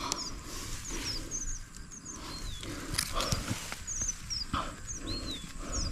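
Birds calling repeatedly with short high chirps and, twice, a falling whistle, over scattered knocks and rustling.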